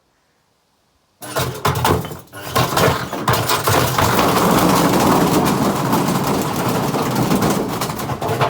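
Candy washing machine running with a brick loose in its drum: the brick bangs and clatters loudly against the drum. It starts abruptly about a second in and falls away at the very end.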